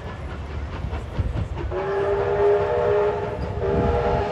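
A moving train's locomotive sounding two long blasts, each a steady chord of several tones together: the first about two seconds in and lasting over a second, the second starting shortly after and still sounding at the end. Underneath runs the low rumble of the train on the track.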